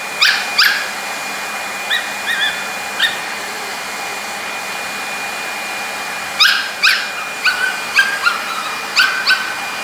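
A hair dryer runs steadily with a thin high whine while a dog yips and barks in short calls that drop in pitch. There are two calls at the start and a few around two to three seconds in, then a quick string of barks from about six seconds in.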